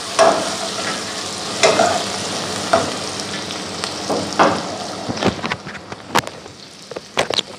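Chopped garlic, onion, green chilli and tomato sizzling as they sauté in oil in a steel pan. A steel ladle stirs them, knocking and scraping against the pan every second or so. The sizzle thins after about five seconds, and a few sharp clicks come near the end.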